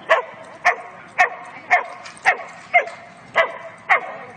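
A dog barking over and over at a steady pace, about two barks a second, each bark short and dropping in pitch.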